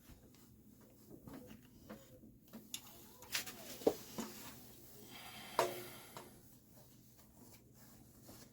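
Scattered handling clicks and knocks, with a short metallic clink that rings briefly about five and a half seconds in.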